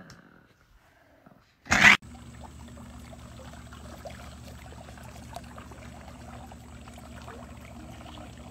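Swimming-pool water trickling and dripping, with many small irregular splashes and pats as a raccoon works its paws at the wet pool edge, over a low steady hum. A short loud burst of noise comes just before it, about two seconds in.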